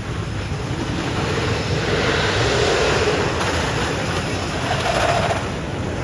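Mine Blower wooden roller coaster train running down its drop and along the track: a rushing rumble of wheels on track that builds about a second in and eases off near the end.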